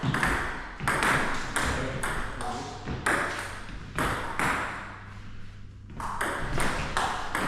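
Table tennis rally: the celluloid ball clicking off bats and table about twice a second, with a short break about five seconds in before the strikes resume.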